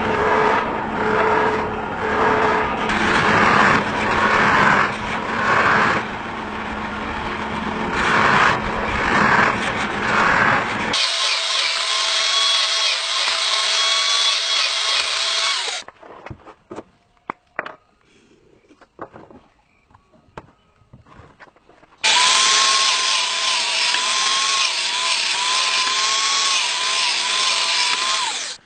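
Power tools running loudly in three separate stretches. The later two carry a wavering whine. A quieter gap of scattered light clicks and taps sits in the middle.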